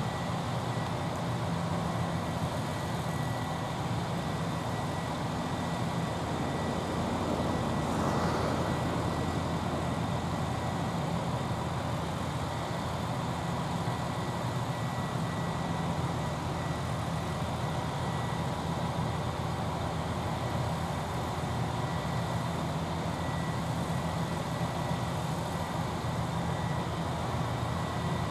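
Steady low rumble of vehicle or machinery noise, swelling briefly about eight seconds in.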